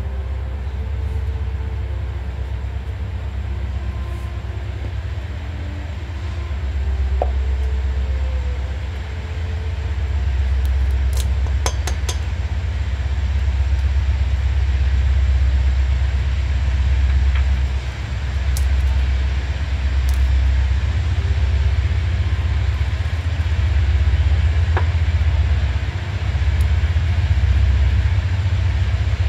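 A loud, steady low rumble with a few sharp clicks about eleven seconds in, as eggs are cracked against a stainless steel mixing bowl.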